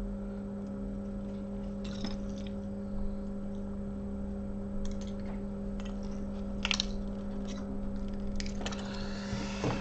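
Small tools clicking and scraping on an iPhone 7 as its home button is taken out, scattered light clicks with a busier run of scraping near the end, over a steady electrical hum.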